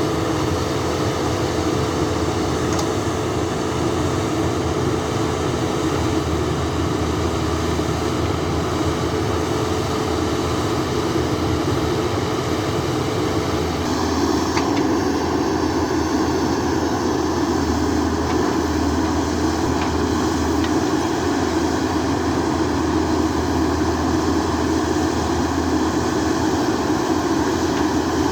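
JCB backhoe loader's diesel engine running steadily under work; about halfway through its note changes and grows a little louder.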